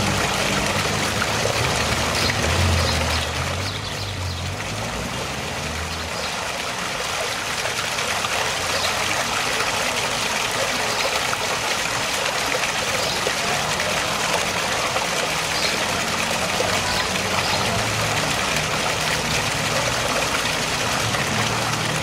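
Small waterfall of a decorative fountain splashing steadily into its shallow pool, a continuous rush of falling water.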